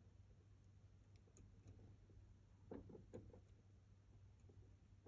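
Near silence: faint room tone with a low hum and a few soft clicks about three seconds in.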